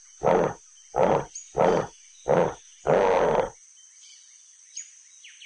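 A bear growling in five short bursts over about three and a half seconds, the last one longer.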